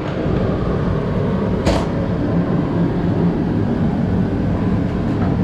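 A machine running loudly and steadily: a dense rushing noise with most of its weight low, like a blower or power tool, with a short hiss about a second and a half in.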